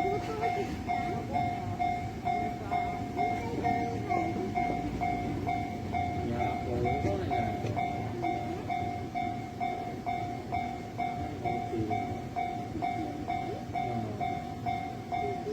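Japanese level-crossing warning bell ringing an even, quick ding-ding, about two to three strikes a second, which signals that the barriers are down for a train. Underneath is a passing train's rumble.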